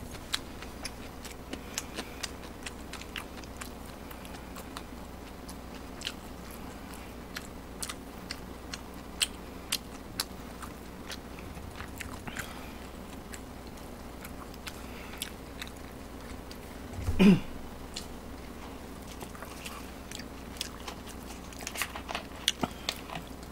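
Close-miked chewing of a mouthful of food, with small wet mouth clicks and smacks scattered throughout and a denser run of them near the end. About 17 seconds in there is one short, louder sound.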